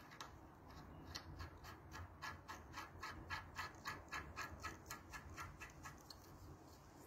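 Faint, regular light metallic clicking, about four clicks a second, from the timing chain and camshaft sprocket being worked by hand while the chain is set. The clicking stops about a second before the end.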